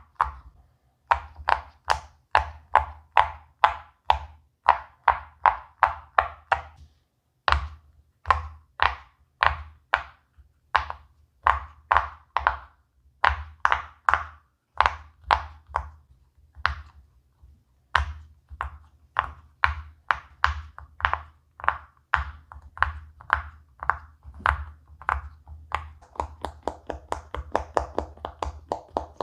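Silicone pop-it fidget toy bubbles being pressed, a steady run of short pops about two or three a second, with a brief pause about seven seconds in. Near the end the pops come faster and softer.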